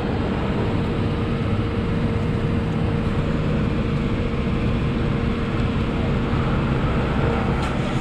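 Fuel dispenser pump running steadily while a motorcycle's tank is filled, a continuous hum with a steady whine that drops out about seven seconds in.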